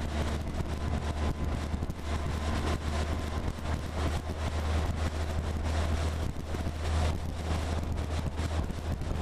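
Military-style jeep driving at road speed: a steady low engine hum, with wind buffeting the hood-mounted microphone and many small rattles.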